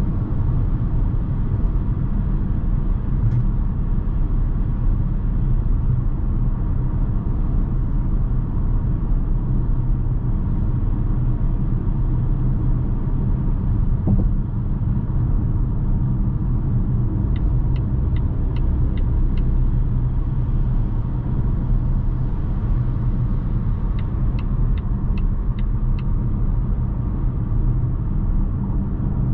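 Interior cabin noise of a 2020 Volvo V60 T5 Cross Country cruising at motorway speed: a steady low rumble of tyres on the road and its 2.0-litre turbo four-cylinder engine. Twice, past the middle, comes a short run of about six light, quick ticks.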